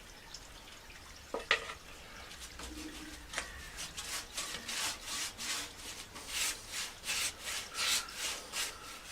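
Rapid back-and-forth hand rubbing or scrubbing strokes, about three a second, starting a few seconds in. A single sharp knock comes about one and a half seconds in.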